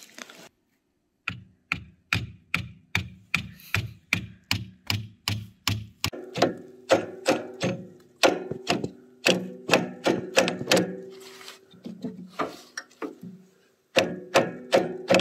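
Hammer blows on metal, about two to three a second, each leaving a short metallic ring, with a brief pause near the end. These are the blows that free and drive together the rust-stuck PTO drive shaft of a front-mount snowblower.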